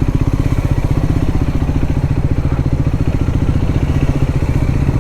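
Triumph Scrambler 400X's single-cylinder engine running steadily at low revs, each firing stroke heard as a distinct, even pulse.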